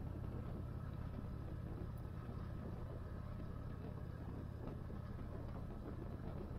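Yamaha Raider 1850's V-twin engine running steadily at a constant cruising speed, heard from the rider's seat, its low note holding an even pitch with no shifting or revving.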